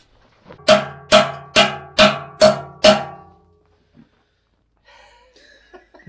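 Six evenly spaced hammer blows on the old concrete mixer's metal parts, about two a second, each ringing on at the same pitch, struck while trying to free the drum from its worn, slipping back end. A few faint knocks and scrapes follow near the end.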